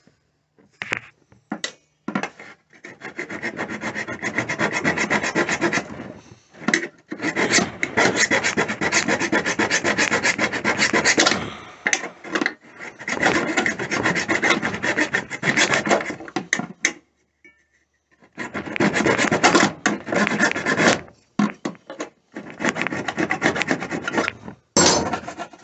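A hand tool rasping and scraping away the broken remains of the plastic dash bracket mount, in five runs of quick back-and-forth strokes a few seconds each, with short pauses between.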